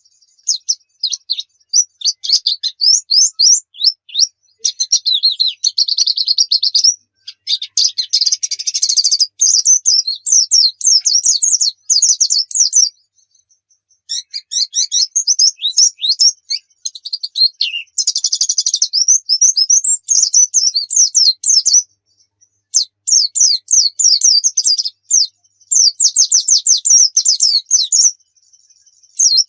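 Pleci (white-eye) singing: long phrases of rapid, high chirping notes, broken by a few short pauses.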